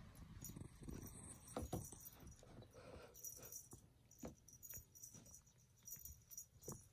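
Faint taps, knocks and rustling of a cat pawing and biting a fluffy wand toy on a wooden floor, with a light jingling now and then.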